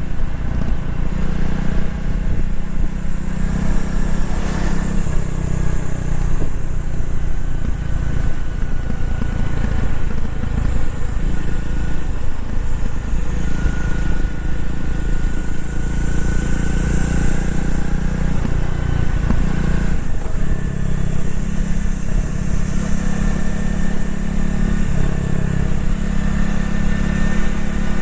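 Honda CRF250L's single-cylinder four-stroke engine and exhaust running steadily under way, its note shifting a few times with throttle.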